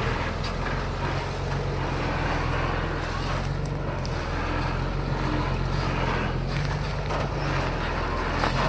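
Heavy diesel engine of a bulldozer running steadily, with a few short metallic knocks about halfway through and again near the end.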